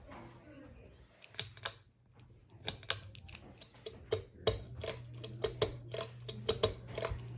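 Ceiling fan motor humming low and steady, the hum growing stronger about halfway through, under a run of irregular sharp clicks and taps.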